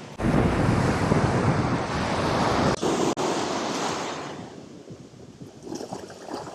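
Waves washing up on the beach with wind noise on the microphone. The rushing sound is loud for about four seconds, then fades to a low hiss.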